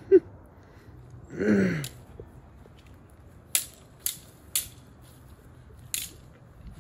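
Thin prop sword rods clacking together in a mock duel: three sharp clacks about half a second apart, then one more near the end. About a second and a half in there is a short voice that falls in pitch.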